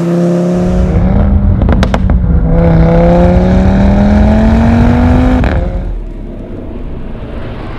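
Audi RS3 8V's turbocharged 2.5-litre five-cylinder engine through a REMUS stainless steel cat-back exhaust, running hard. A few sharp exhaust pops come about two seconds in. Then it accelerates with a rising pitch until the sound cuts off abruptly about five and a half seconds in, and a quieter rumbling sound effect follows.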